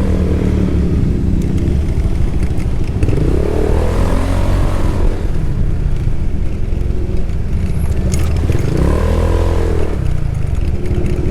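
Triumph Thruxton 900's air-cooled parallel-twin engine running on its stock ECU map. The engine pitch rises and falls twice, about four and about nine seconds in.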